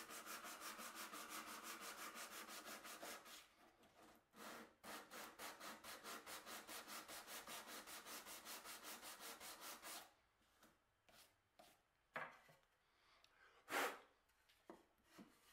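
Sandpaper on a stick rubbed back and forth by hand along the edge of a wooden stool leg, smoothing out chisel marks, at about four strokes a second with a brief pause after a few seconds. The sanding stops after about ten seconds, leaving a few soft knocks, the loudest near the end.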